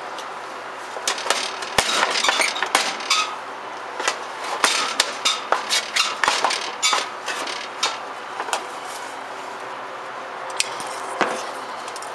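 Kitchen dishes and utensils clinking and knocking in quick, irregular bursts, most of them between about one and seven seconds in, with a few more near the end.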